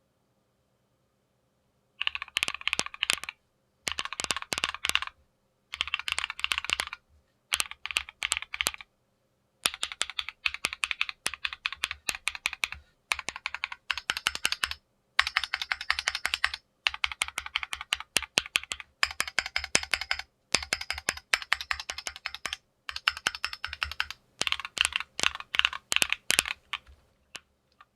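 Keychron Q0 Plus numpad with MMD Princess linear switches, SA ABS keycaps and an aluminium plate being typed on: about a dozen quick runs of rapid keystrokes separated by short pauses, starting about two seconds in.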